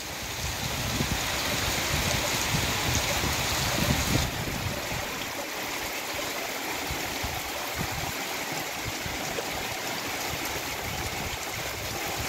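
Heavy rain falling steadily, with runoff pouring off a roof edge and splashing onto the ground. It is a little louder for the first four seconds, then settles into an even rush.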